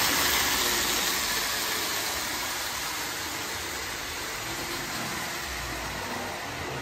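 Marx tinplate toy train running on three-rail track: a steady, even mechanical clatter of wheels and running gear that slowly grows fainter.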